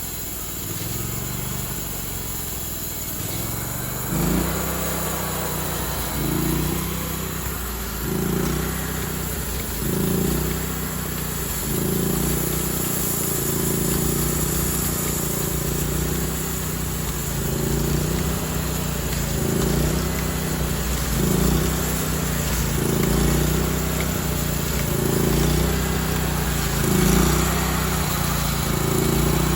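An engine running steadily. From about four seconds in, its pitch and loudness rise and fall every couple of seconds, as if it is working under changing load.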